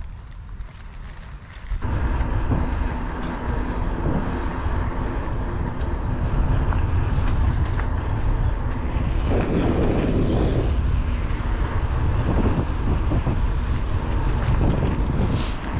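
Wind buffeting the microphone of a camera mounted on a moving bicycle, over a low rumble of tyres on rough tarmac. It is quieter for the first two seconds, then starts abruptly and stays loud.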